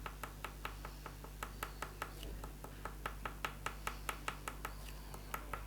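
Oil pastel stick working the paper in quick short strokes: a rapid, even run of light taps, about five a second, with a brief pause around the middle.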